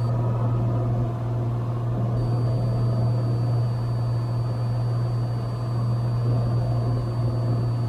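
Cessna 182 Skylane's piston engine and propeller droning steadily in cruise, heard from inside the cabin as a deep, even hum.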